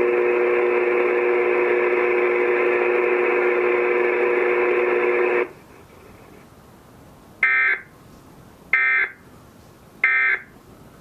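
Weather radio Emergency Alert System alert tone, held steady and then cut off suddenly about five and a half seconds in. After a short pause come three short bursts of SAME digital data tones, a little over a second apart: the coded signalling of a Required Monthly Test.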